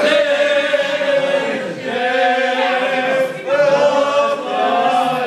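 A group of people singing together, with long held notes and short breaks between phrases.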